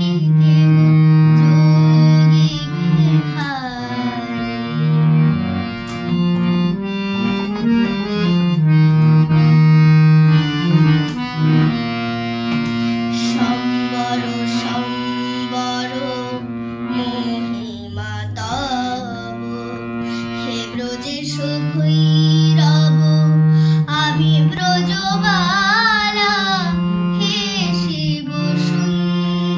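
A young girl singing a song to her own accompaniment on a hand-pumped harmonium, its reeds holding long steady chords under her voice.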